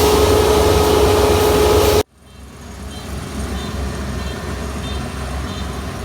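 Kubota ER470 combine harvester running at work, a loud steady machine noise with a droning hum. It cuts off abruptly about two seconds in, then a quieter engine noise rises back and runs steadily.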